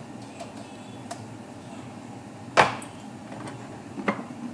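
A few sharp knocks of a plastic spatula against a nonstick pot while dry rice is being toasted, the loudest about two and a half seconds in and another about four seconds in, with fainter clicks before them.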